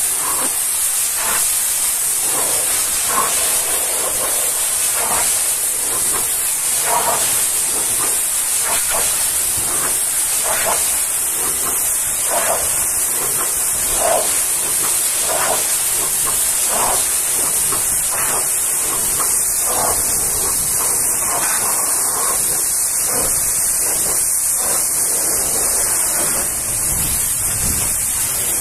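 High-pressure washer jet spraying water against a truck trailer's metal side panels: a steady, loud hiss.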